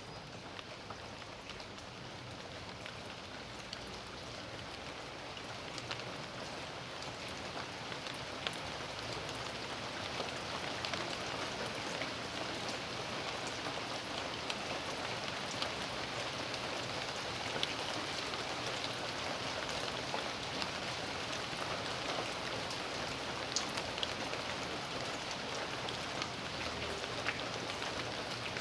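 Rain falling steadily, with many individual drops ticking. It grows heavier over the first ten seconds or so, then holds steady.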